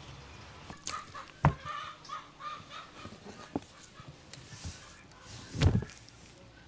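Knife work on a whole cow head on a plastic tabletop, with two dull thumps as the heavy head is shifted on the table, about a second and a half in and louder near the end. Between them comes a run of short pitched animal calls, about four a second.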